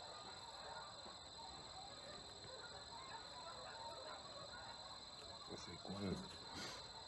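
Steady high-pitched drone of insects, with a brief low call or voice about six seconds in.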